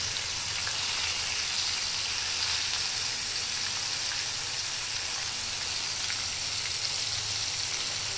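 Rice-flour and gram-flour coated Bombay duck (bombil) fish frying in hot oil: a steady sizzling hiss with fine crackles.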